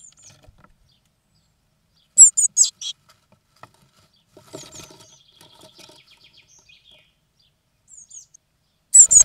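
Blue tit fledglings inside a wooden nest box calling in short bursts of high, thin chirps, about two seconds in and again at the end. Fainter chirps and light scratching of feet on the nest fall in between.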